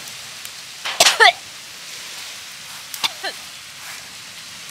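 Short wordless vocal sounds from a woman, shivering in the cold: one about a second in, right after a sharp click, and two brief falling ones about three seconds in. A steady hiss of wind runs under them.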